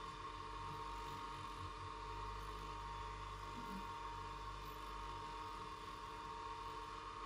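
Restored two-wheel bench grinder's electric motor running with a steady low hum and an even high whine; no grinding of the steel tool is heard.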